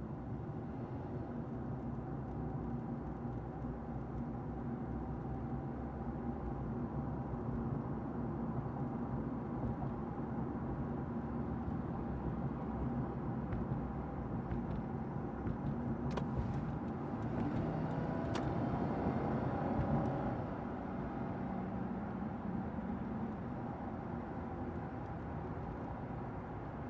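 Steady road and engine noise inside a moving car's cabin: a low rumble of tyres and engine with a faint hum, a few light clicks and a slightly louder stretch between about 16 and 21 seconds in.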